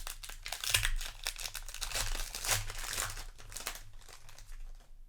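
Foil Magic: The Gathering booster pack wrapper being torn open and crinkled in the hands, a dense crackling that thins out after about four seconds.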